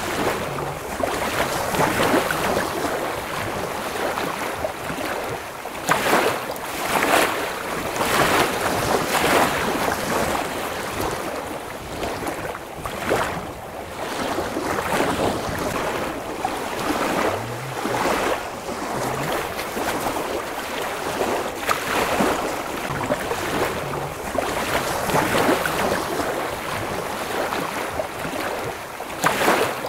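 Small lake waves washing onto a sandy beach, each swell breaking and running up the shore with foam, one after another every second or two.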